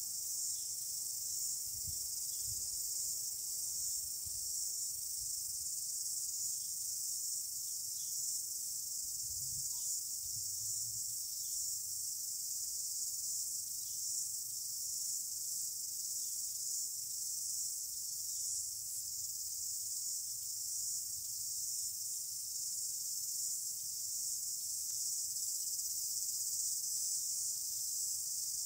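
Steady, high-pitched chorus of insects, unbroken and even throughout.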